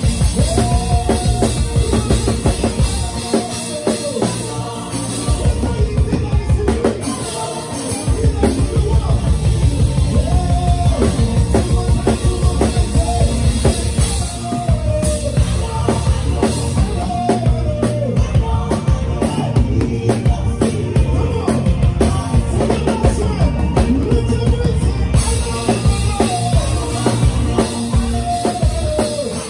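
Live praise band playing an instrumental groove: a drum kit with a heavy bass drum and a steady beat, full bass underneath, and a short melodic phrase that recurs every few seconds.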